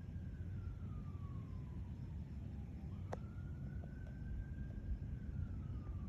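A siren wailing, its pitch rising and falling slowly about once every three seconds, over a steady low rumble, with a single click about three seconds in.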